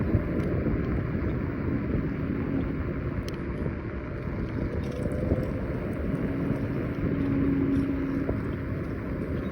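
Riding noise from a Kaabo Wolf Warrior 11 Pro electric scooter under way: a steady rush of wind on the microphone and road noise. A faint whine comes in briefly twice, the longer one a little after the middle.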